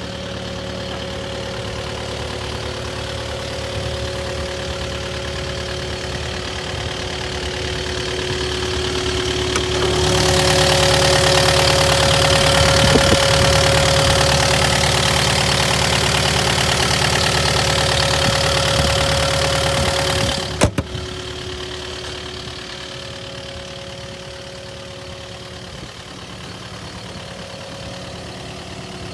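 Kubota KX080-4 excavator's diesel engine running steadily. About a third of the way in it grows louder and fuller for some ten seconds, then drops back with a sharp click to a quieter idle.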